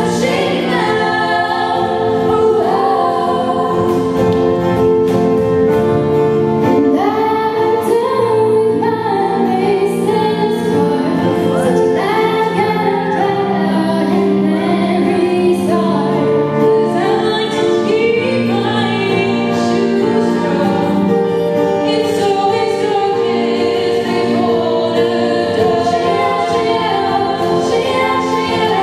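Female a cappella group singing in harmony, with long held low notes under a moving melody line.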